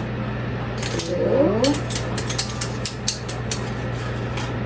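Measuring spoon clicking and scraping against a container and bowl, about three or four sharp clicks a second, as teaspoons of baking powder are measured out. A steady low hum runs underneath, and there is a short voice-like falling sound about a second in.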